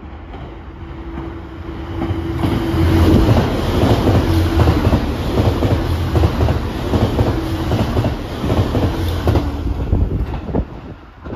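JR HC85 hybrid diesel limited express train running through a station at speed without stopping. The rumble builds as it approaches, the wheels clack repeatedly over the rail joints as the cars go by, and the sound drops away near the end as it pulls off.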